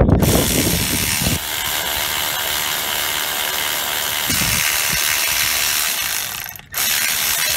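Powered ratchet running steadily, spinning out an E12 Torx bolt on a BMW water pump through a long extension. It cuts out abruptly near the end and starts again a moment later.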